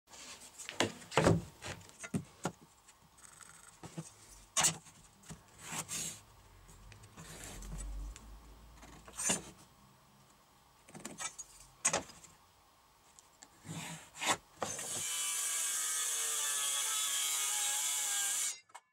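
Knocks and clatter of a plywood board being handled and marked on a wooden workbench. About 15 seconds in, a cordless circular saw runs and cuts through the plywood for about three and a half seconds, then stops suddenly.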